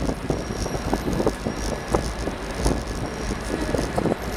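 Road and traffic noise heard from a bicycle riding through town traffic: a steady low rumble with irregular small knocks and rattles.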